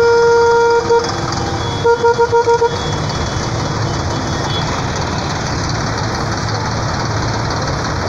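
A vehicle horn sounds one held blast of just under a second, then a quick run of about six short beeps. After that, tractor engines run steadily with a low rumble as the tractors pass.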